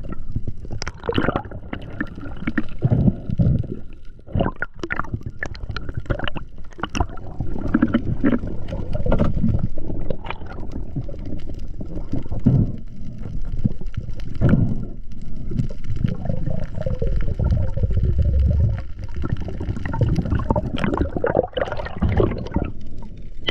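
Underwater sound picked up by a diver's camera: a continuous low water rush and gurgling, with irregular knocks and clicks from the diver moving and handling gear.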